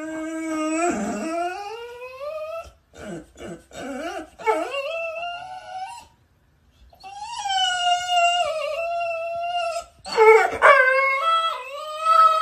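Pit bull howling in a series of long, wavering calls that slide up and down in pitch, with short breaks between them.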